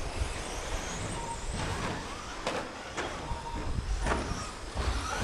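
Several 2WD short course RC trucks racing: the whine of their electric motors rises and falls as they speed up and brake. Several sharp knocks come from the trucks hitting the track.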